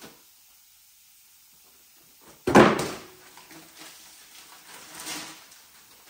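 A single loud thump as a cardboard shipping box is set down on a concrete floor, then quieter crinkling of a rolled plastic banner being handled and unrolled.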